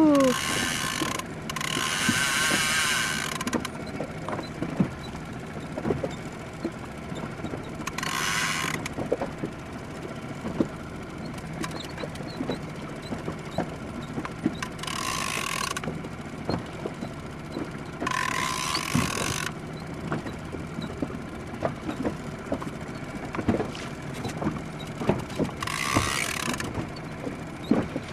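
Big-game fishing reel being cranked against a heavy fish, with irregular mechanical clicking and creaking.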